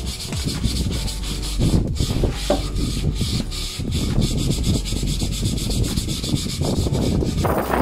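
Sandpaper rubbing back and forth over wood, smoothing a toolbox board in repeated strokes. The sound changes abruptly near the end.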